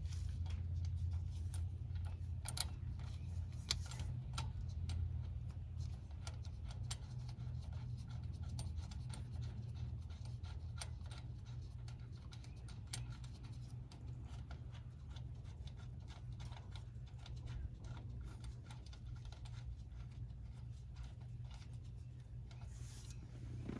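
Scattered light clicks, taps and scrapes of tools and parts being handled over a steady low rumble that fades slightly.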